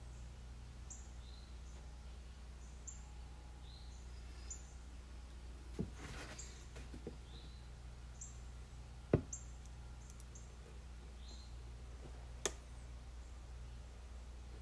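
Quiet work with a hot knife on a plastic laundry jug: a few light knocks and clicks as the tip is pressed and moved against the plastic, the sharpest a little past the middle, over a steady low hum and faint high chirps. The knife is not yet hot enough to cut easily.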